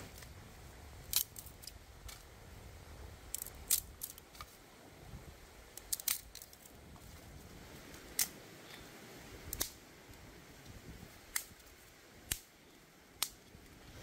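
A dozen or so short, sharp clicks and snips at irregular intervals over a faint steady hiss.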